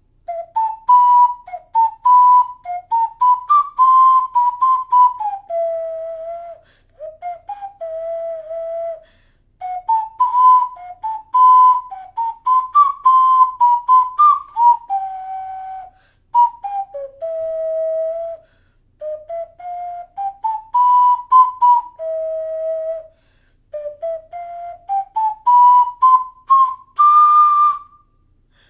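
12-hole alto C ceramic ocarina played by a beginner: a pure, flute-like melody of quick stepwise runs broken by held lower notes and short pauses, with the same phrase tried several times.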